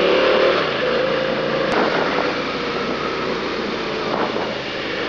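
Suzuki SV650 V-twin motorcycle engine running while riding, under steady wind and road noise. Its engine note is clearest at the start, then sinks into the wind noise.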